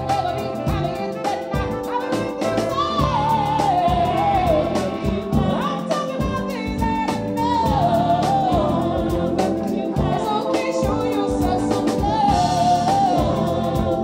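A live band playing with a woman singing lead: a wavering sung melody over keyboards, electric guitar and drums keeping a steady beat.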